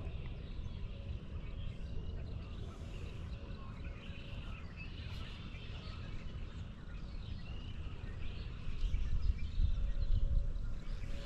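Birds chirping and calling over a low rumble that grows louder near the end.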